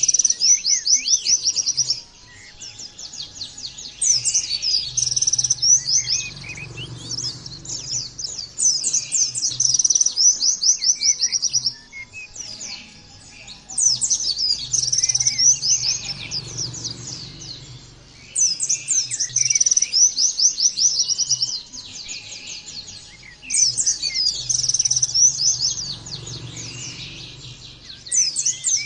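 White-eye (pleci) singing: long bouts of rapid, high-pitched chirping trills a few seconds each, broken by short pauses and starting up again.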